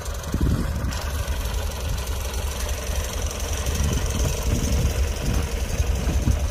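Ford 4600 tractor's engine idling steadily.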